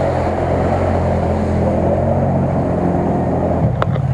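CFMoto CF-800 side-by-side's V-twin engine running under steady load as it pushes through deep mud and water, with splashing mud. Near the end the engine note drops and a single sharp click sounds.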